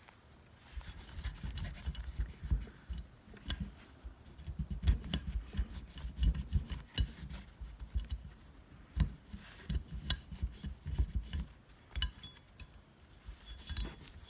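Cotton tissue being rubbed and scrubbed over the parts of a stripped-down Glock pistol to wipe off dirt and cleaning oil, with irregular handling bumps and light clicks of the parts.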